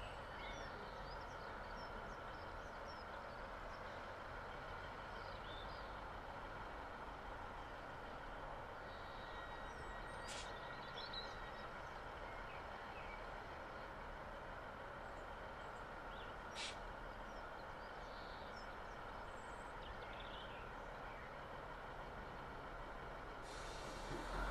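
Class 156 Sprinter diesel multiple unit idling at a station platform with a steady low hum, faint birds chirping over it and two sharp clicks. The sound grows louder near the end.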